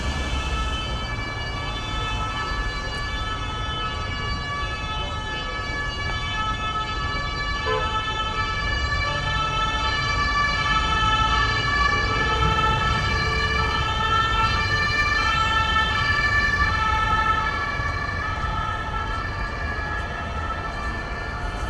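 An emergency-vehicle siren sounding throughout, its tone stepping back and forth between pitches, over low city street rumble.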